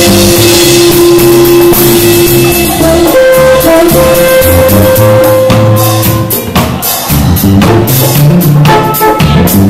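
Live band playing an instrumental dub jam, loud throughout. A drum kit and electric guitar play over a bass line, with long held notes.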